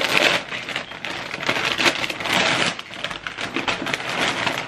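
Gift-wrapping paper crinkling and tearing as a present is unwrapped by hand, a dense run of crackles and rustles.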